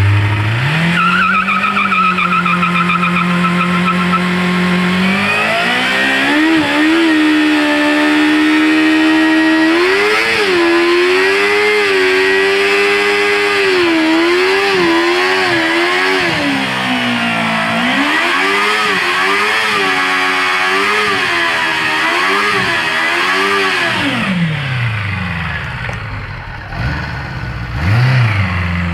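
A 1986 Honda CBR400RR Aero's inline-four engine revving hard in a stationary burnout, the rear tyre spinning on concrete. The revs climb in two steps over the first six seconds, then rise and dip repeatedly at high revs. They fall back to idle near the end, with one short blip just before it ends.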